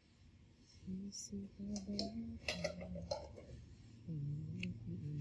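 A faint, low voice in the room, with a few light clicks.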